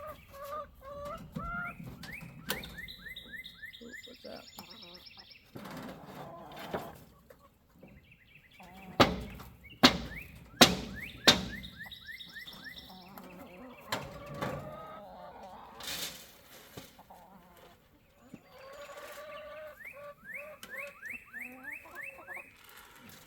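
Chickens clucking and calling in quick runs of short notes. A few seconds in and again near the end the hens break into rapid strings of calls. Partway through, four sharp knocks come in quick succession, the loudest sounds here.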